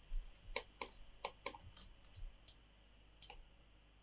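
Computer mouse clicking at an irregular pace, about a dozen short sharp clicks, with a quiet gap near the end.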